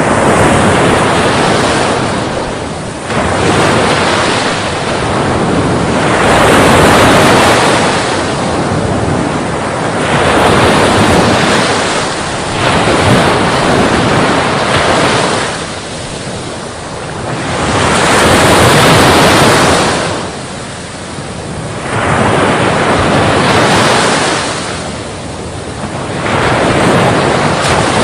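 Sea waves breaking as surf: a loud, rushing noise that swells and fades in surges every few seconds.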